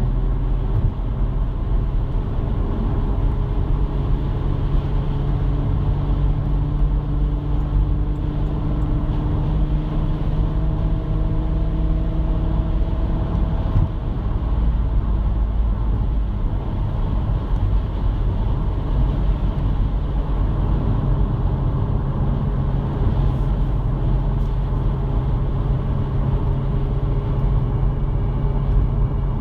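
An R32's engine running steadily with a low drone, carrying a noise the owner finds strange. Fainter higher tones slowly rise in pitch through the first half and die away about halfway through.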